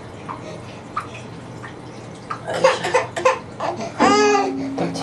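A toddler babbling and giggling in short bursts, then a loud, long drawn-out vocal sound, a whine or cry, starting about four seconds in.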